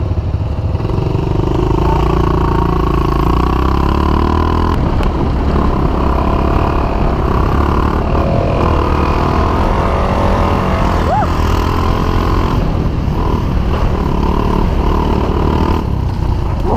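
A small dirt bike's engine runs under way as it is ridden along a trail, its pitch rising as it pulls away in the first few seconds and then holding with small changes of throttle.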